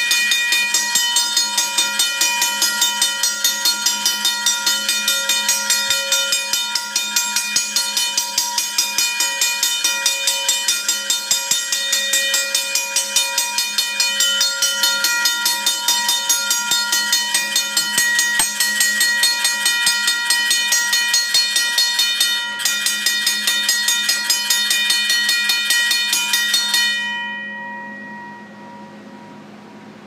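Safetran mechanical railroad-crossing bell ringing, pretty loud: its electrically driven striker hammers the gong in a fast, even rhythm, with ringing tones sustained under the strikes. It stops about 27 seconds in and the gong rings on briefly as it fades.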